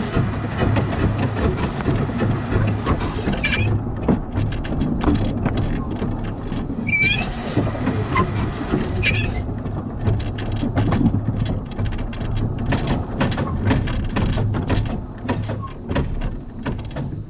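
Narrow-gauge Bagnall 0-4-0 saddle tank steam locomotive running slowly on its track: a steady rumble with many clicks and knocks from the wheels and rails. Steam hisses for the first few seconds and again for about two seconds midway, with a brief squeal.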